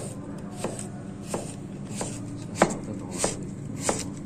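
Kitchen knife slicing down through a red onion onto a cutting board. The blade knocks the board at an even pace, seven strokes about two-thirds of a second apart, with one stroke a little past the middle louder than the rest.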